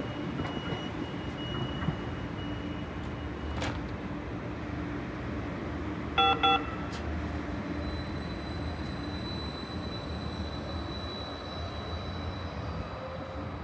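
Electric light-rail train at a platform giving a loud double warning tone about six seconds in, then moving off. A thin high whine from its electric drive comes in soon after, over the low rumble of the cars.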